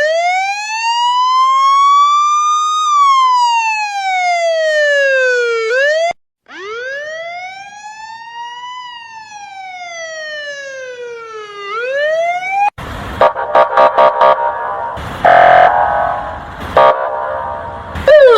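Emergency-vehicle siren sound effects: an electronic wail that rises and falls slowly, about six seconds per cycle, twice, the second quieter. About thirteen seconds in it gives way to a harsher, noisier stretch of short repeated blasts and a longer loud blast.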